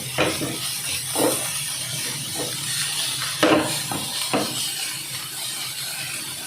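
Grated beetroot and carrot sautéing in a pan, a steady sizzle, with a spatula knocking and scraping against the pan about half a dozen times as the vegetables are stirred.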